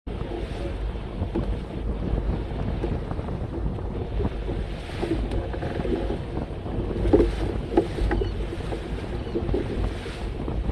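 Wind buffeting the microphone over the rush of water along a sailboat's hull as it sails, with a couple of knocks about seven seconds in.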